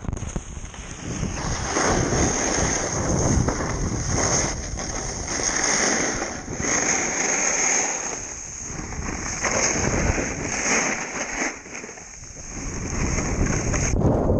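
Muffled rustling and crunching of deep powder snow against the camera as the snowboarder struggles in it, in uneven swells that rise and fade, mixed with wind noise on the microphone.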